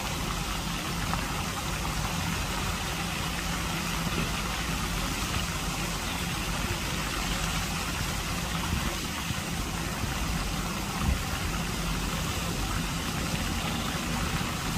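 Steady rush of lake fountain jets spraying and splashing onto the water, over a low steady hum, with one dull bump about three-quarters of the way through.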